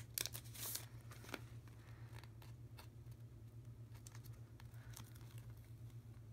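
Clear plastic sticker packaging and sticker sheet crinkling as the sheet is slid out of its sleeve: a short crackle in the first second, then faint scattered rustles and clicks as the sheet is handled.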